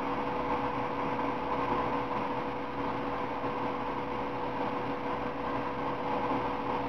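Steady machine hum and hiss, with one constant mid-pitched tone running under it.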